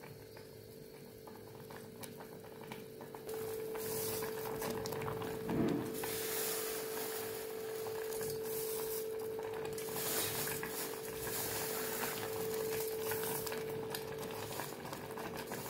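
Water with sago at a rolling boil in a steel pot, bubbling steadily and getting louder over the first few seconds. A steady low hum runs underneath.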